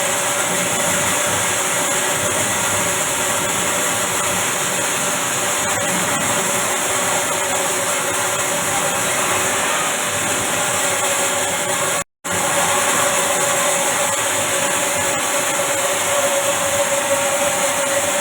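A 50 kg grain roasting machine running: a steady, loud mechanical noise with a hiss and a constant hum, cut off for a moment about twelve seconds in.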